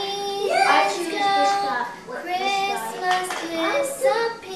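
A young girl singing a Christmas song solo, in sustained sung phrases with short breaths between them.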